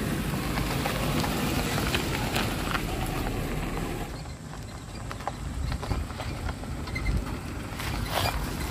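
Maruti Gypsy 4x4 driving on a dirt road: its engine runs low under the crunch of the tyres, with scattered clicks from the road surface.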